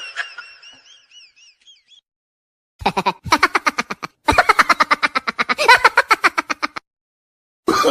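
A rapid, pulsing laugh in two long bursts, the second starting about four seconds in, after a wavering high tone that fades away in the first two seconds.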